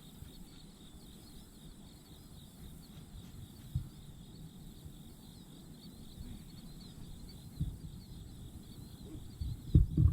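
Insects chirping steadily in a continuous pulsing chorus over a low outdoor rumble, with a single low thump about four seconds in, another near eight seconds, and a cluster of louder low knocks near the end.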